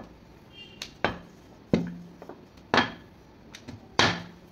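Wooden rolling pin knocking on a glass tabletop as flatbread dough is rolled out. There are four sharp knocks about a second apart and a few lighter taps between them, each knock leaving a short low ring.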